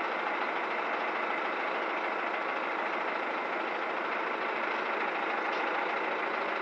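Truck engine idling, a steady running noise with no change.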